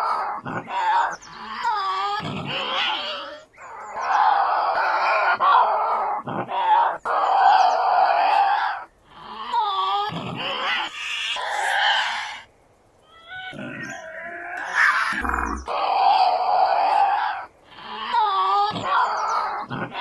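Tasmanian devil growling and screeching in a run of harsh calls, each a second or more long with short breaks between. Some rise and fall in a moaning pitch; others are longer, rasping screeches.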